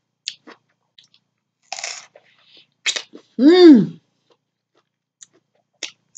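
Someone eating juicy watermelon: small wet mouth clicks and slurps of biting and chewing. About three and a half seconds in comes one short, loud vocal sound, pitched and swooping up then down.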